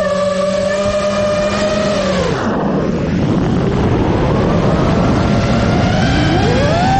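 FPV race drone's brushless motors and propellers whining, heard from the onboard camera. The pitch drops sharply about two and a half seconds in as the throttle comes off for a dive, then climbs again near the end as the throttle comes back on, over steady wind rush on the microphone.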